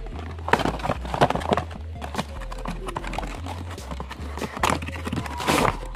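Cardboard toy box being opened by hand: the flap and packaging rustle, scrape and knock irregularly, with a burst of handling near the start and another near the end.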